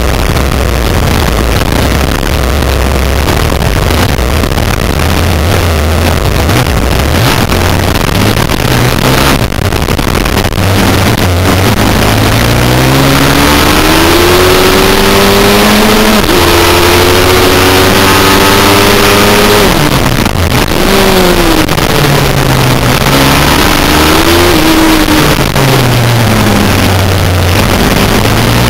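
Pit bike's single-cylinder engine recorded on board, with heavy wind and rumble on the microphone. For the first ten seconds or so the engine is buried in rough noise. Then its pitch climbs through the gears with drops at the shifts, and near the end it rises and falls as the throttle is opened and closed through corners.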